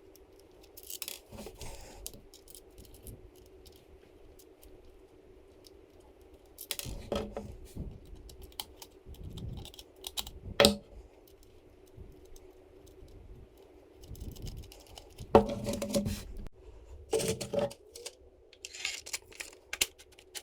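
Small 3D-printed plastic parts and metal hardware being handled during assembly: irregular clicks, taps and short rattles, with two sharper knocks near the middle and a faint steady hum underneath.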